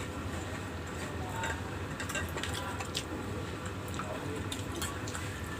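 Close-up mouth sounds of someone eating: chewing with frequent short wet clicks and smacks, over a steady low hum.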